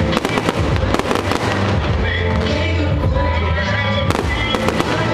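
Fireworks show: aerial shells bursting in quick succession with sharp bangs and crackling, over continuous music.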